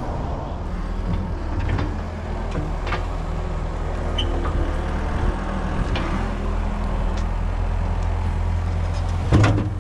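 An engine running steadily with an even low hum, with a few faint knocks over it.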